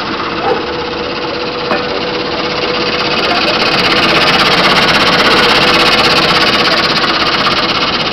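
Quinoa seed cleaning machine and gravity separator running: a steady hum with a fast rattling vibration, loud throughout. It grows louder about three seconds in and eases again near the end.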